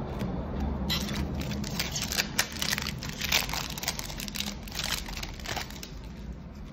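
A Magic: The Gathering draft booster pack's foil wrapper being torn open and crinkled: a run of crackling and tearing that starts about a second in and dies away near the end.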